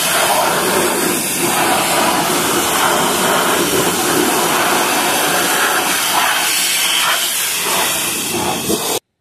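Pressure washer spraying a jet of water: a loud, steady hiss that cuts off suddenly near the end.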